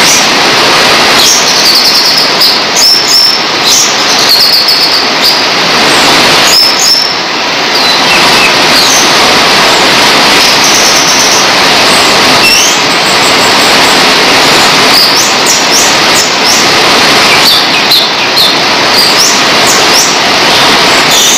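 Orange-headed thrush singing in its cage, short high chirping notes coming in clusters over a loud, steady rushing noise.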